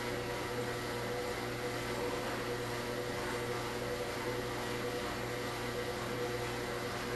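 Steady electrical hum of room background noise, several fixed tones over a faint even hiss, with no other events.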